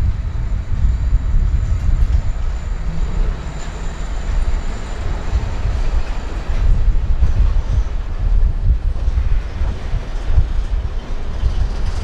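Freight train of covered hopper cars rolling past close by: a steady low rumble of steel wheels on rail, with scattered clicks from the wheels in the second half.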